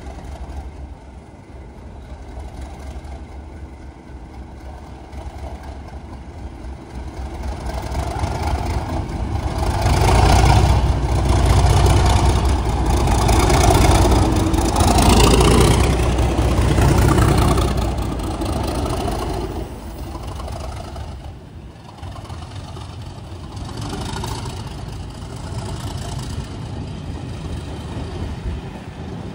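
Class 37 diesel locomotive's English Electric V12 engine running as it passes at low speed, growing louder about a third of the way in and loudest as it draws level. The test train's coaches then roll by with a quieter steady noise.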